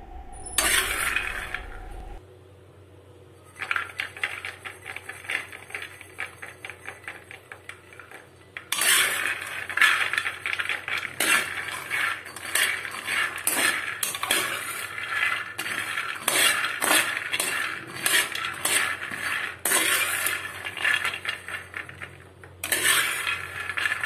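Peanuts being roasted in a hammered metal kadai and stirred with a steel ladle: the nuts rattle and skitter against the pan and the ladle scrapes the metal in a fast stream of clicks. Lighter at first, it grows much louder and denser from about nine seconds in.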